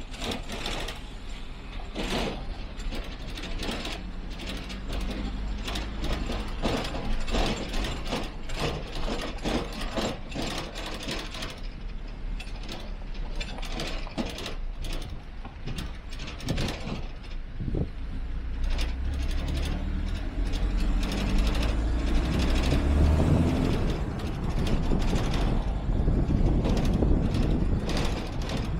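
A car's cabin rattling and knocking on the move, with many irregular clicks over a low engine rumble. About two-thirds of the way through, the engine note climbs in pitch and the sound grows louder as the car accelerates.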